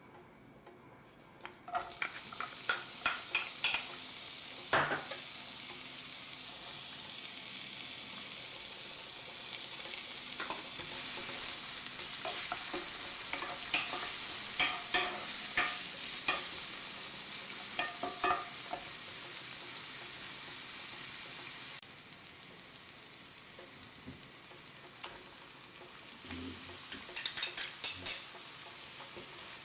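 Chopped vegetables sizzling in hot oil in a frying pan, stirred with a utensil that clicks and scrapes against the pan now and then. The sizzle starts about two seconds in and drops to a quieter hiss about two-thirds of the way through.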